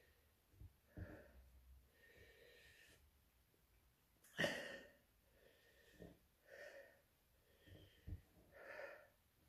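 A man's heavy breathing through the burn of hot chili peppers: a series of breaths a second or two apart, the loudest a sharp one about four seconds in.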